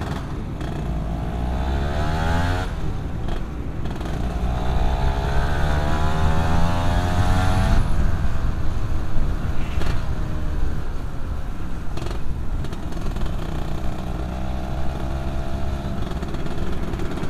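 Yamaha F1ZR two-stroke motorcycle engine revving as the bike pulls away and eases off in slow traffic, its pitch rising several times.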